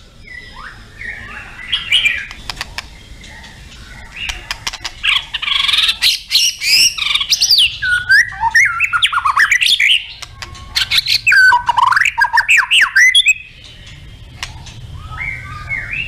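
White-rumped shama singing a loud, varied song of rapid whistled phrases that sweep quickly up and down in pitch. It builds from a few softer notes to full song about four seconds in, then breaks off abruptly a few seconds before the end, leaving only faint notes.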